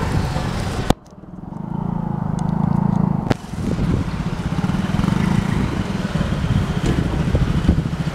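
Street traffic: motorbike and car engines running close by. A sharp click comes about a second in, after which the sound drops away and builds back up.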